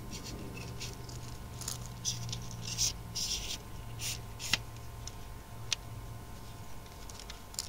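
Soft scraping and rubbing as the fibreglass sections of a Comet GP-6N antenna are worked together by hand at their connector joint, with two sharp clicks, one about four and a half seconds in and another a second later. A faint steady low hum runs underneath.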